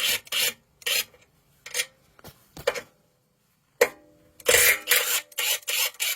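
Ratchet wrench being worked on the sump cover bolts of a Honda GX200 engine, giving short rasping strokes: a few spaced ones, then a quick run of them near the end.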